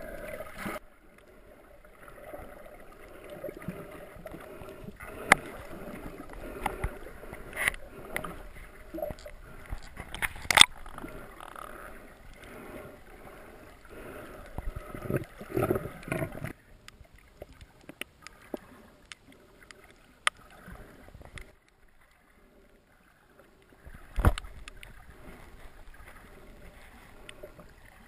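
Muffled underwater sound picked up by a snorkeller's camera: water sloshing and bubbling against the housing, with sharp clicks and knocks now and then. It drops quieter for several seconds past the middle.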